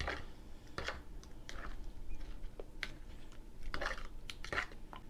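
A fork tapping and scraping against a bowl while turning raw fish fillets in egg wash: light, irregular clicks, about eight of them, with soft wet handling in between.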